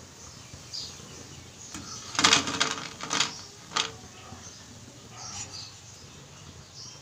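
Wire-mesh frying strainer clattering against the metal kadai and plate as fried soybean pieces are lifted out of the oil and tipped off: a burst of metallic clinks with a brief ringing about two seconds in, then a single knock about a second later. Faint sizzling of the frying oil underneath.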